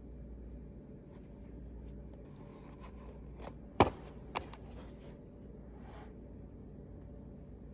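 Cardboard box of a SOL emergency bivvy handled and turned over in the hand: light taps and rustles, with one sharp click a little before the middle and a smaller one just after.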